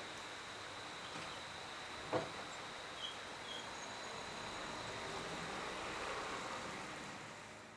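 A cricket trilling steadily on one high note over a broad rushing noise of a distant vehicle, which swells and then fades away near the end. A single sharp click about two seconds in, and a few short faint chirps a second later.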